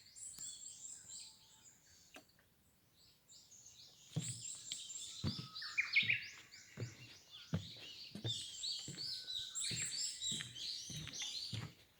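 Many small forest birds chirping and twittering. After a short lull, footsteps on the forest trail start about four seconds in and keep an even walking pace, under dense birdsong.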